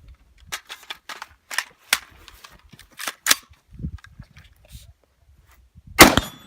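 Sharp clicks and clacks of an AR-15-style rifle being grabbed and loaded for a timed drill, then a single loud rifle shot with a ringing echo about six seconds in.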